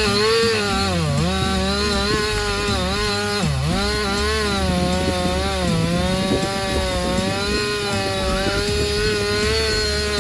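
Stihl two-stroke chainsaw running at high speed through the wood. Its engine note holds steady but dips briefly twice, about a second in and at about three and a half seconds, as the chain loads in the cut.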